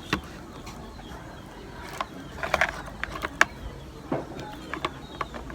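Eating sounds: a string of short, irregular clicks and crunches, thickest around the middle, from biting and chewing food and handling it.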